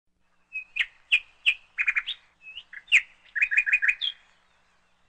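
Small bird chirping: a series of short, high chirps, some in quick runs of three or four, stopping about four seconds in.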